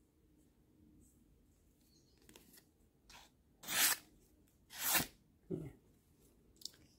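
A knife blade slicing through a sheet of paper in several short swishes, the two loudest about four and five seconds in: a paper-cutting test of the edge's sharpness.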